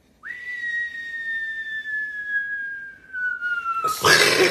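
A pug whining: one long, high, clear whine that sinks slowly in pitch. It breaks off near the end into a loud burst of breathy noise.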